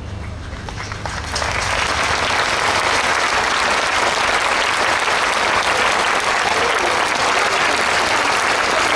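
A large open-air crowd bursts into applause about a second in, after a hushed stretch. The applause swells quickly and then holds as dense, sustained clapping.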